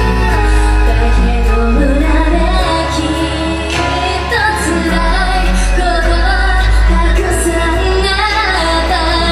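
Female idol pop group singing live over a pop backing track with a heavy, sustained bass line, played loud through the hall's speakers.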